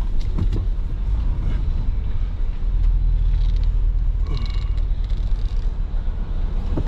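Steady low rumble of idling vehicles, heard from inside a pickup truck's cab.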